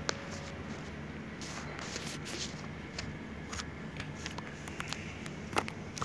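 Handling noise: scattered clicks and rustles as wiring is moved about inside an air-conditioning outdoor unit's electrical compartment, over a steady low hum. The sharpest click comes near the end.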